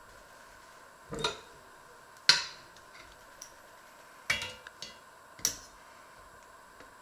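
A metal cake server knocking against an enamelled pot and a china plate while a piece of cake is cut and lifted out: four sharp clinks spread over several seconds, the second the loudest, with a couple of lighter taps after the third.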